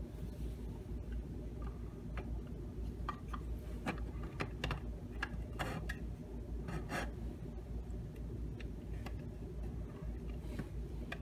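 Light clicks and taps of 3D-printed PLA plastic tiles being handled and pressed into place against a plastic box, scattered and irregular, over a steady low background hum.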